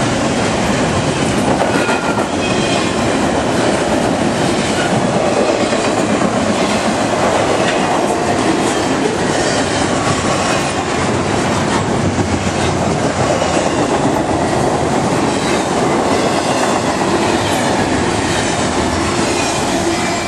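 CSX intermodal freight cars rolling past at close range: a steady, loud rumble and clatter of wheels on rail, with faint high squeals at times.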